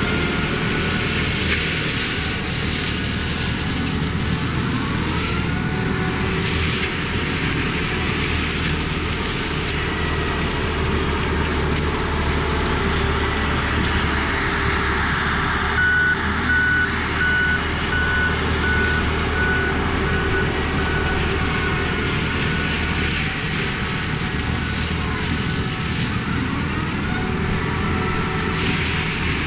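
Mini excavator running hard with its Rut hydraulic brush cutter head spinning: a loud, steady machine noise. Past the middle, the excavator's travel alarm beeps quickly and evenly for a few seconds.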